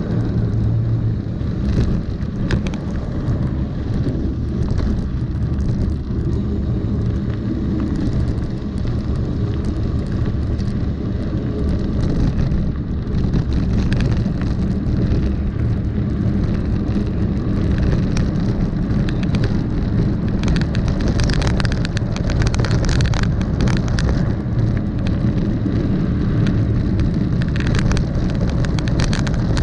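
Wind buffeting the microphone while a mountain bike rolls down a gravel road, its tyres crunching over loose stones and the bike rattling and clattering on the rough surface; the clatter grows busier about halfway through.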